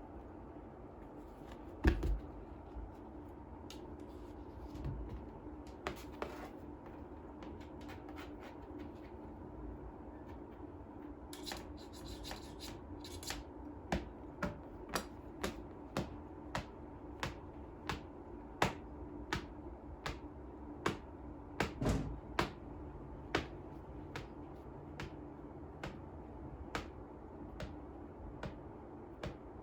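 A series of sharp clicks and taps, coming about two a second through the middle stretch, over a steady low hum.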